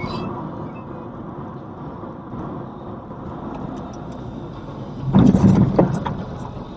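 Steady driving noise inside a moving car's cabin, with a loud, rough burst of noise about five seconds in and a few sharp clicks after it, while a car ahead rolls onto its side.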